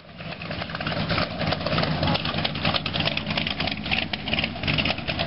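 Vintage panel truck's engine running steadily as it rolls past, a low rumble with a rough, crackly edge.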